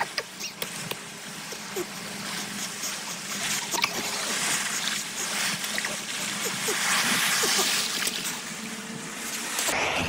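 Sea surf washing onto a sandy shore: a steady hiss of breaking waves that swells midway, with small splashes of someone wading out through the shallows.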